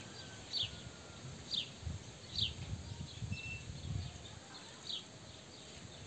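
A bird repeating a short, high, falling call every second or so, over soft low rustling.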